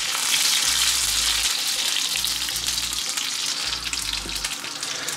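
Curry leaves and mustard seeds sizzling and crackling in hot coconut oil in a frying pan: the tempering stage, with the mustard seeds spluttering. The sizzle eases slightly toward the end.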